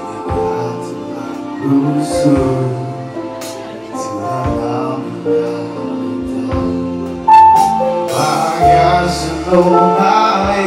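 A man singing a slow song into a microphone over amplified backing music, holding long notes that step from pitch to pitch.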